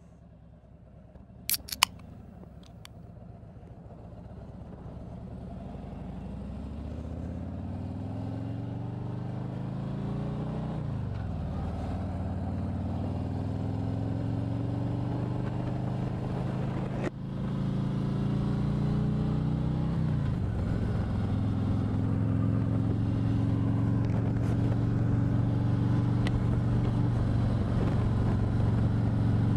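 2017 Harley-Davidson Street Glide's Milwaukee-Eight V-twin through Vance & Hines Twin Slash 4-inch slip-on mufflers, pulling away and rising in pitch through two gear changes about ten and twenty seconds in, then cruising steadily. A few sharp clicks about two seconds in.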